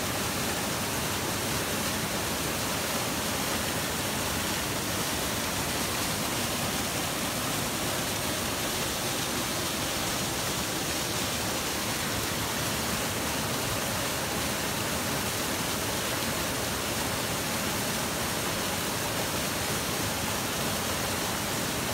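Two waterfalls pouring into a plunge pool: a steady rush of falling water.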